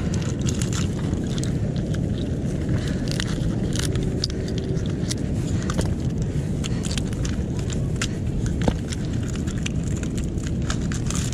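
Mussel shells clicking and clattering as they are pulled from the rocks and dropped into a collapsible bucket, over a steady low rumble.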